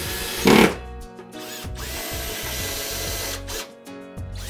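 Black+Decker cordless drill-driver running as it drives screws partially home through metal wall fixings, with a short loud burst about half a second in. The motor runs steadily, stops briefly near the end, then starts again.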